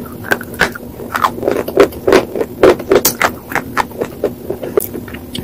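Close-up crunching and chewing of a piece of white slate, a rapid run of sharp, brittle crunches as it is bitten and ground between the teeth.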